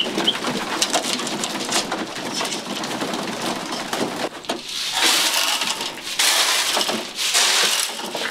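Racing pigeons pecking grain in a wooden basket: a dense patter of small clicks and rattling seed. From about five seconds in come louder rushes of grain rattling as feed is spread from a bucket.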